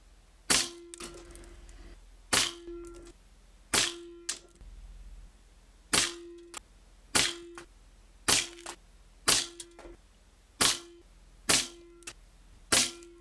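Crosman Challenger .177 PCP air rifle firing about ten shots in quick succession, each a sharp, short report followed by a brief ring and often a fainter click.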